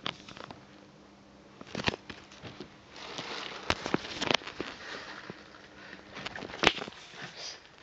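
Rustling and a few sharp clicks from a cat moving about on an upholstered seat while a hand plays with it. The rustling is thickest around the middle, and the loudest click comes about a second before the end.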